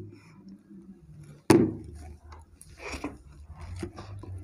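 Plastic plates clattering on a tabletop as cake is eaten straight from them without hands: one sharp knock about a second and a half in, then a few smaller knocks and rustles.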